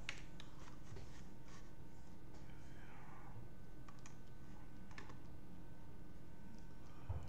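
Scattered light clicks and taps over a steady low hum, with a soft thump near the end.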